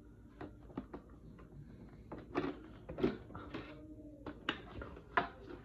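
Irregular light clicks and taps of plastic toy playset pieces being handled and fitted together.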